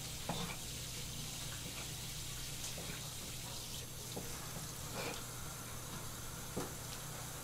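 Tap water spraying steadily from a shower-style spray head onto a gutted fish on a plastic cutting board, an even hiss. A few light knocks come through, once near the start, once in the middle and once toward the end.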